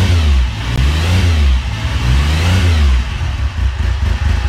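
Motorcycle engine revved up and down in repeated blips, then running unevenly near the end.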